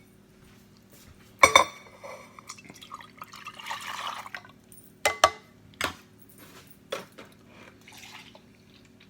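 Milk being poured out of a measuring cup for about two seconds, around the middle, with several sharp clinks and knocks of kitchenware: one about a second and a half in, and a cluster between five and seven seconds.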